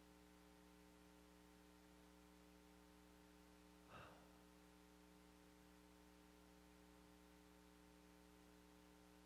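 Near silence with a steady electrical hum, and one brief faint sound about four seconds in.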